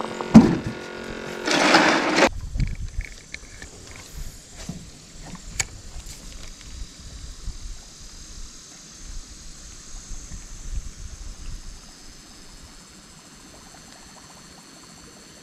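A brief noisy clatter about two seconds in as a caught crappie goes into a plastic cooler. Then the faint steady whine of an electric trolling motor, which dies away a few seconds before the end.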